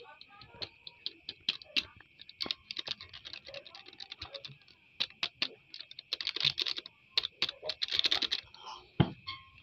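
Irregular plastic clicks, taps and crinkles from hands tearing a medicine sachet and handling a small plastic Yakult bottle, with two short rustling bursts in the second half and a sharp knock near the end. A steady high chirring of night insects runs underneath.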